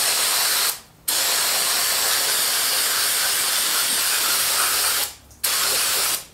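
Aerosol parts cleaner spraying onto a power steering pinion gear in three sprays with sudden starts and stops: one that ends under a second in, a long one of about four seconds, and a shorter one near the end.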